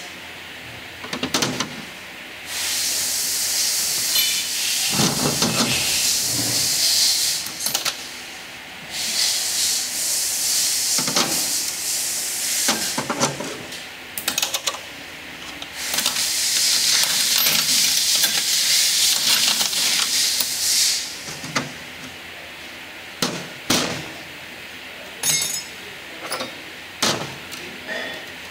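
Compressed air hissing in three long bursts of several seconds each, with metal transmission parts clinking and knocking in between as they are handled and set down, several sharp clinks near the end.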